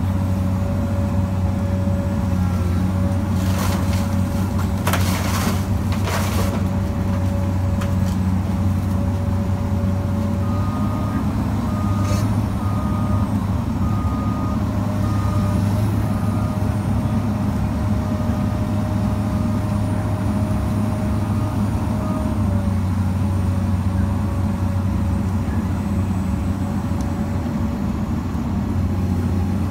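Komatsu PC200LC hydraulic excavator's diesel engine running steadily with a constant whine over it. A few sharp cracks and crunches come a few seconds in, and partway through a backup alarm beeps evenly, a bit more than once a second, for about ten seconds.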